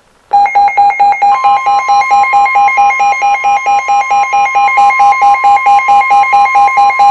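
Weather radio alert: rapid, evenly spaced electronic beeping, joined about a second in by a steady high tone, the NOAA Weather Radio warning alarm tone that signals a warning is about to be read.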